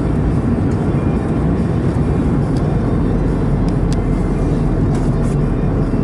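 Steady road and engine rumble of a car being driven, heard from inside the cabin, with a few faint clicks.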